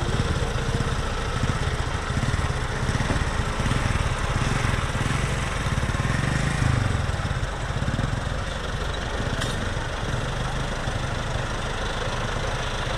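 Massey Ferguson diesel tractor engine running steadily at low revs, a little louder midway and a little softer in the second half.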